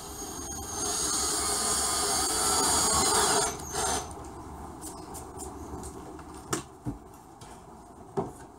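Craftsman cordless drill driving a wood screw into a board with a steady motor whine for about three and a half seconds, then a short second pulse to sink the screw head below the surface. A few sharp knocks follow near the end.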